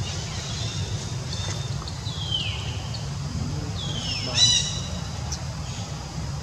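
High-pitched animal calls: two short calls sliding down in pitch, then a louder, harsher call about four and a half seconds in, over a steady low rumble.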